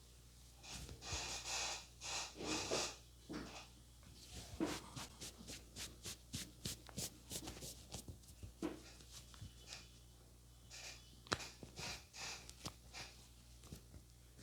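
Barber's hands massaging a head: rubbing and scrunching through the hair, then a quick run of sharp clicks at about three or four a second in the middle, and more rubbing and a few clicks near the end.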